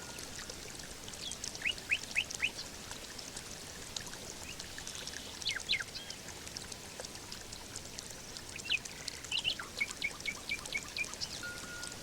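Birds chirping over a steady trickle of running water: short, quick calls scattered throughout, with a fast run of about six repeated notes near the end.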